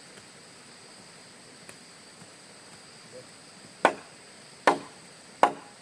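Three chopping strokes of a blade into wood. They start about four seconds in and come about three-quarters of a second apart, over a steady high insect drone.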